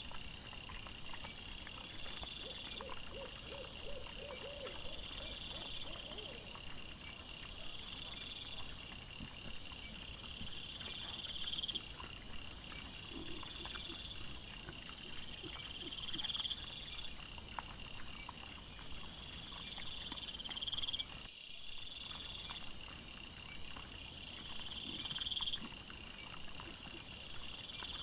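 Night insects chirping in a steady cycle, a high chirping trill that swells and fades every two seconds or so. Twice a brief run of low pulsed calls sounds beneath it, once a few seconds in and once about halfway through.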